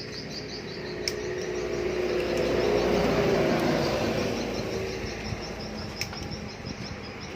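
Insects chirping in a steady, even rhythm over a low rumble that swells a couple of seconds in and then eases off, with a couple of faint clicks.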